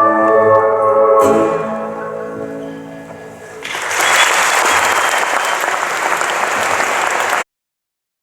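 A live band's closing sustained notes ring and fade out, then audience applause breaks out about four seconds in and cuts off abruptly near the end.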